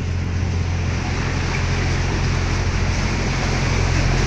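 Canal tour boat's motor running steadily with a constant low hum, under an even hiss of water and wind.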